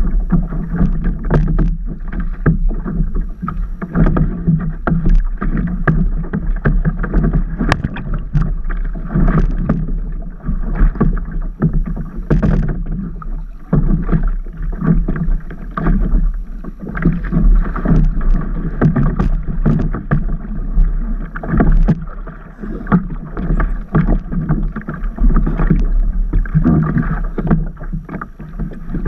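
Water sloshing and slapping against a stand-up paddleboard, with irregular splashes, muffled.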